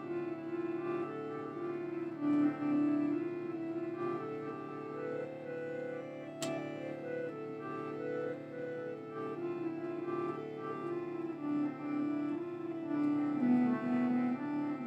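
Slow instrumental music: a melody stepping up and down over a steady held low drone, with one sharp click about six and a half seconds in.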